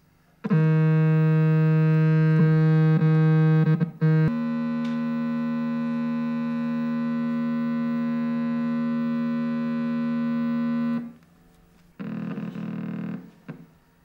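Electronic oscillator circuit sounding through a speaker: a steady buzzy tone with a few clicks, switching about four seconds in to a higher steady tone that cuts off suddenly near the end, followed by a short, harsher tone.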